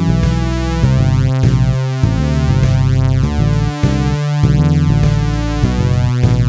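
Electronic synthesizer music: layered synth notes changing in steps over a strong bass line.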